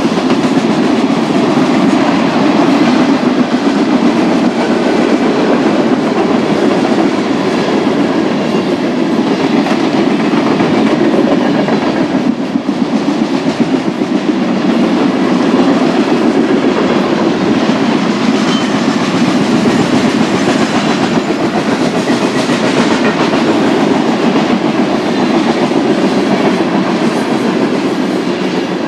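Freight cars of a BNSF grain train rolling past, their wheels giving a steady loud clatter and clicking over the rails, easing off slightly near the end.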